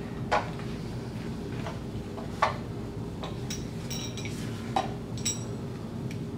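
An AR-7 survival rifle being unpacked from its hollow plastic stock, its metal parts handled. A few sharp knocks spread through, with light ringing metallic clinks in the middle, over a steady low hum.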